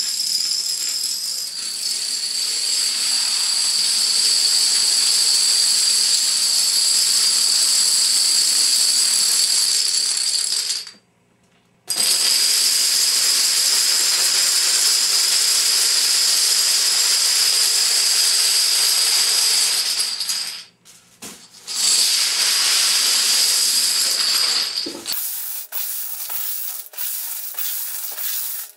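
Thousands of domino stones toppling in a chain reaction: a dense, continuous clatter that cuts off abruptly twice for about a second. Near the end it turns thinner, with scattered clicks as the last stones fall.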